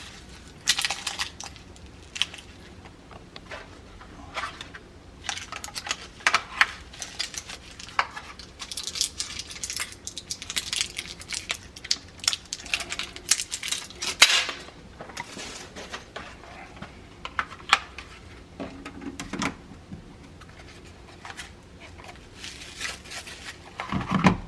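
Irregular small clicks, taps and rustles of hands handling a plastic thermostat and its small parts, with a busier stretch of rustling and clicking in the middle.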